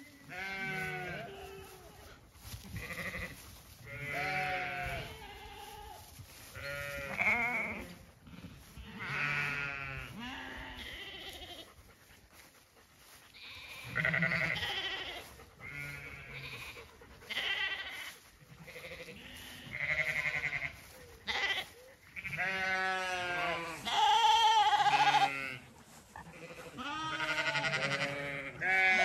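Zwartbles sheep and lambs bleating over and over, one call after another every second or two, several voices at different pitches, the loudest calls near the end.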